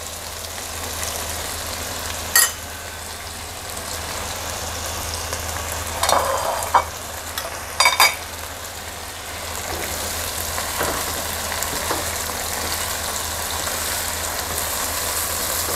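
Chicken breast fillets sizzling steadily in sauce in a nonstick wok. A wooden spatula knocks and scrapes against the pan a few times, about two, six and eight seconds in.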